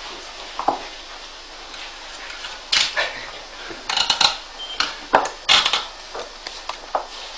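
Scattered metallic clinks and knocks of hands working on a machine, with a cluster of sharp ones around the middle. No steady motor running is heard.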